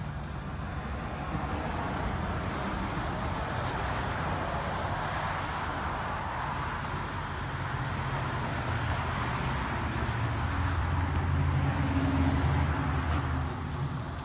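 Road traffic going by: a steady rush of tyres and engines, with a lower engine drone that builds to its loudest about twelve seconds in and then eases off.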